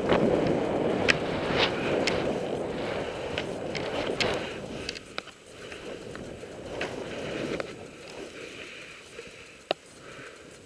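Skis running through deep powder snow: a rushing swish, louder for the first half and quieter after about five seconds, with a few sharp clicks.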